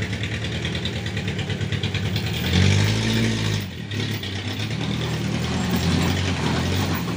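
Pickup truck engine running and revving up as it drives off, loudest about two and a half seconds in, easing briefly, then pulling steadily again.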